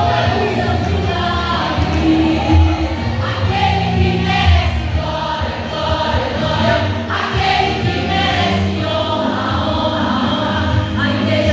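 Choir singing a gospel hymn in Portuguese, with steady low instrumental backing.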